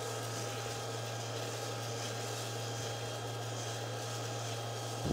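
Steady electric hum of a home coffee roaster's fan and motor running, with the rustle of roasted coffee beans being stirred by a wooden spoon in a steel cooling bowl.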